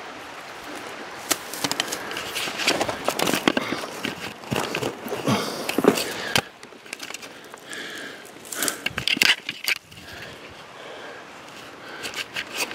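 Dry brush and twigs crackling, snapping and scraping as someone climbs up through thick, thorny scrub: an irregular run of sharp cracks and rustles.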